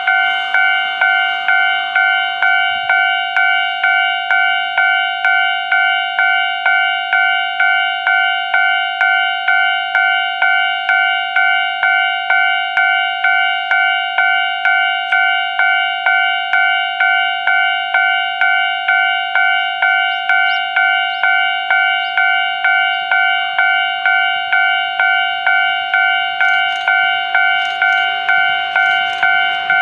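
Japanese level-crossing warning bell ringing steadily, a bit under two strikes a second, signalling an approaching train. Near the end the approaching electric train's wheel clicks begin to come in.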